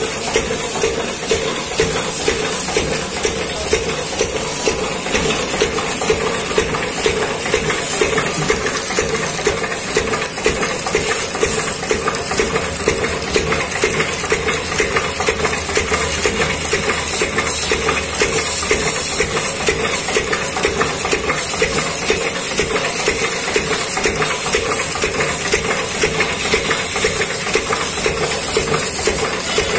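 Single-cylinder stationary diesel engine running steadily, belt-driving the water pump of a vehicle-wash system, with a steady high hiss over it.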